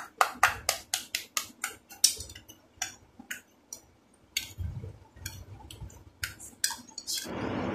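Steel spoon clinking against a small stainless steel bowl while mashing an overripe banana: a quick run of sharp metallic clicks, about three or four a second at first, thinning out after about three seconds.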